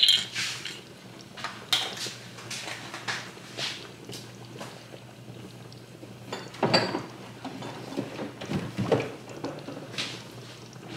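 Kitchen handling sounds: a cabinet door being opened and items shifted on its shelf, with scattered knocks and clinks, the loudest about two-thirds of the way in. A low steady hum runs underneath.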